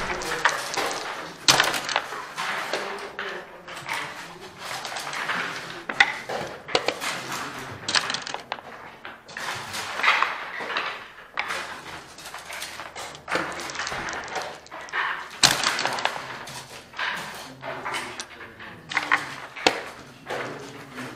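Long-nardy (backgammon) play: checkers clacking onto the board and dice landing, in sharp, irregular clicks every second or so.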